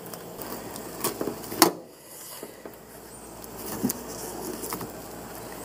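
Old rubber windshield seal being pulled out of a classic VW Beetle's window frame by hand, with scattered clicks and knocks. The sharpest knock comes about a second and a half in.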